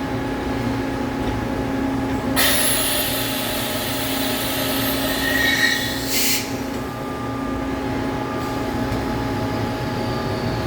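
Awea SP3016 vertical machining center running through an automatic tool change, with a steady machine hum. About two seconds in, a loud hiss starts, lasts roughly four seconds and cuts off sharply.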